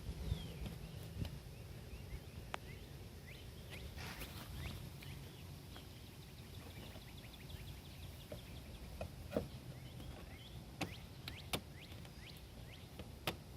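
Small birds chirping steadily in the background, many quick falling chirps, with a low rumble of handling noise. A few sharp clicks or taps come through, mostly in the second half.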